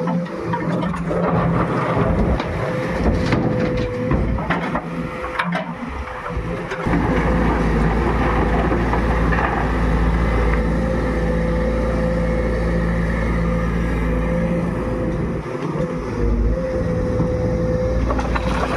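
Excavator's diesel engine running steadily with a steady high-pitched tone over it, with several sharp knocks and clatter in the first six seconds. From about seven seconds in the engine becomes louder and deeper, easing off briefly near the end.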